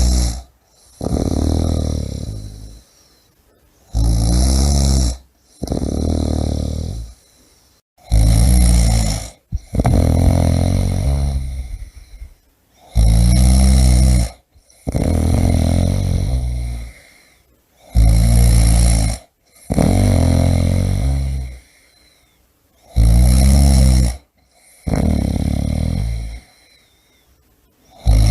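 A person snoring loudly in a steady rhythm: each breath is a short loud snore followed at once by a longer snore that fades away, repeating about every four and a half seconds, six times.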